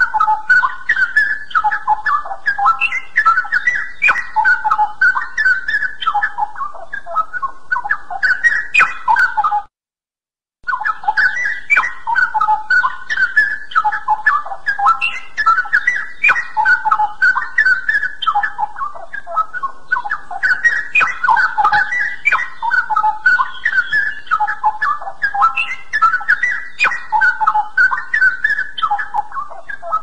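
Straw-headed bulbul (cucak rawa) singing: a continuous run of whistled phrases of short notes that hop up and down in pitch, breaking off for about a second near the ten-second mark before starting again.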